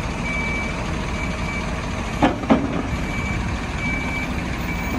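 Reversing alarm on heavy haulage machinery beeping at a steady pace, about one beep a second, over a heavy diesel engine running. About two seconds in there are two sharp knocks, a quarter second apart.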